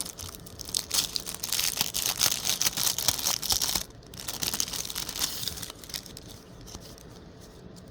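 Plastic packaging crinkling and rustling as it is handled and opened, a dense crackle for the first few seconds that then thins to lighter, fainter rustling.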